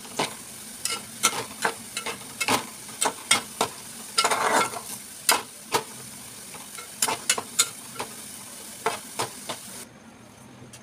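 Sliced onions sizzling in hot oil in a metal pot while a metal spatula stirs them, scraping and clicking against the pot in quick, irregular strokes. The sizzle cuts off shortly before the end.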